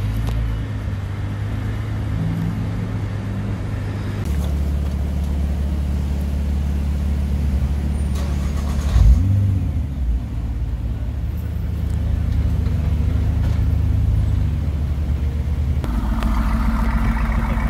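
Nissan GT-R's twin-turbo V6 idling steadily, with one short throttle blip about nine seconds in. Near the end it gives way to a Mercedes-AMG GT roadster's twin-turbo V8 idling.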